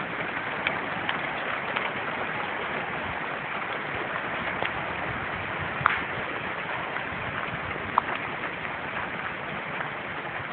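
Heavy hail pouring down: a dense, steady patter of hailstones with sharper single strikes standing out here and there, the loudest about six and eight seconds in.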